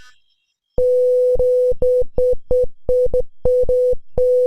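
A steady 500 Hz pure tone from a sound-wave simulation's virtual speaker. It starts about a second in, then keeps breaking up into short pieces of uneven length.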